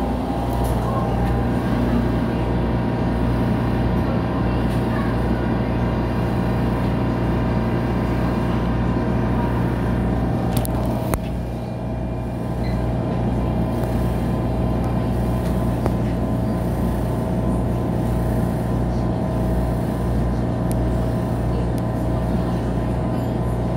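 Inside an MTR A-train passenger car: a steady hum and drone from the train's running equipment, with a couple of faint clicks about eleven seconds in.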